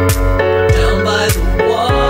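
Background music with a steady beat: deep kick drums falling in pitch about every 0.6 s under sustained chords.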